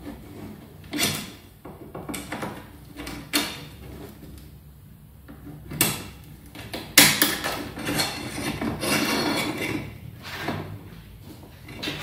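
Shimano 105 STI lever and its clamp band being worked over the end of a drop handlebar and slid along it: a series of sharp clicks and knocks, then a longer scraping rub from about seven to ten seconds in.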